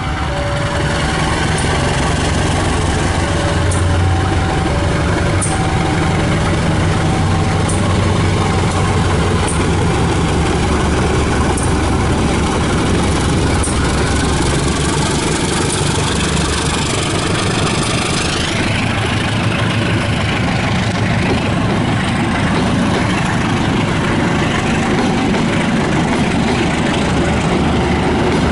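Diesel-electric locomotive passing close by, its engine running with a heavy low drone, followed from about two-thirds of the way through by the passenger coaches rolling past with wheel and rail rattle.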